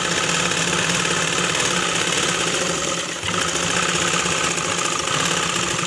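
Sewing machine running steadily, stitching a side seam through white petticoat cloth, with a slight dip in level about three seconds in.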